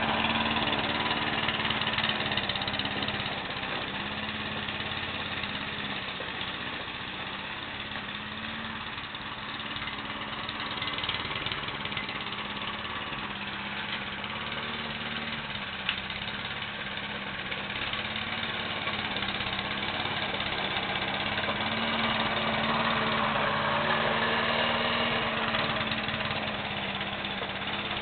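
Briggs & Stratton single-cylinder walk-behind lawn mower engine running steadily while it smokes heavily. Its sound fades a little and comes back as it is pushed away and back.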